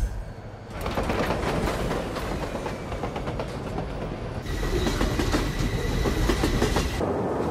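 Subway train running, heard from inside the car: a steady rumble with rapid clatter of the wheels over the rails. A faint steady whine joins about halfway through.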